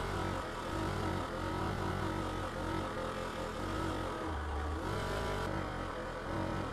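HYET 6-inch, half-horsepower bench grinder-buffer running steadily, with a steady hum, while an axe head is held against its spinning wheel to clean the rust off, the steel scrubbing on the wheel.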